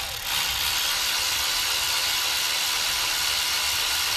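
Cordless power driver running steadily, spinning out a water pump bolt. It stops for a moment just after the start, then runs on without a break.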